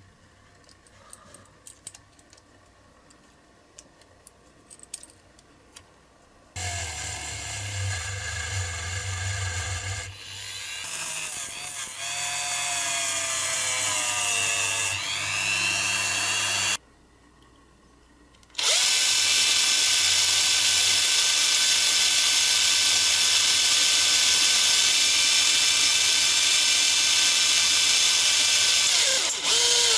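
A few light clicks as a small die-cast baseplate is handled, then a rotary tool with a brass wire brush wheel runs against the metal, its pitch sliding down and back up. After a short pause, a cordless drill with a small bit runs steadily and high-pitched as it bores into a yellow plastic part, stopping briefly near the end.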